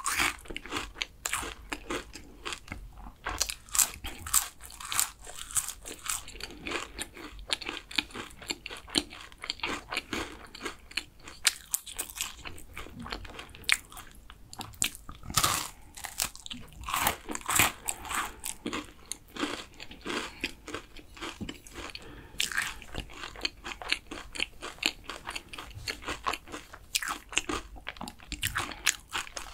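Close-miked crunching and chewing of a flaky, caramelized kouign-amann pastry: a dense run of sharp, crisp crackles as the laminated crust breaks between the teeth.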